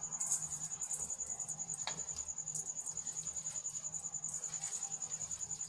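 A cricket chirping in a steady, rapid, high-pitched trill, with a single click about two seconds in.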